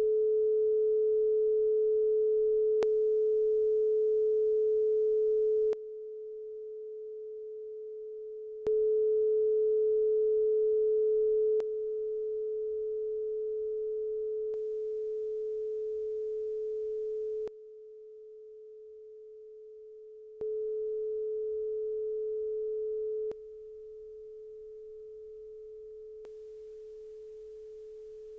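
A steady pure test tone, a little under 500 Hz, recorded through Sennheiser MKE 2 and DPA 4060 lavalier microphones for a signal-to-noise comparison. It comes in sections of about three seconds that switch abruptly between louder and quieter levels. Faint hiss from the microphones' self-noise runs under some sections.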